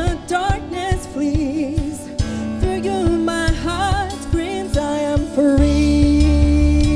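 Live contemporary worship song: a woman singing lead with vibrato over a church band with guitars and drum hits. The bass comes back in strongly near the end, under a long held sung note.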